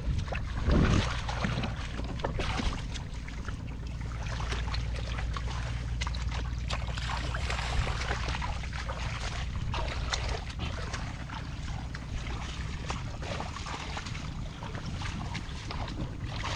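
Hands splashing and sloshing in shallow muddy field water in irregular bursts while groping for fish, with a louder splash about a second in. Wind rumbles steadily on the microphone underneath.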